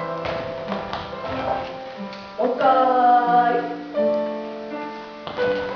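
Background music: a keyboard or piano tune of held notes, with a melody line that may be sung.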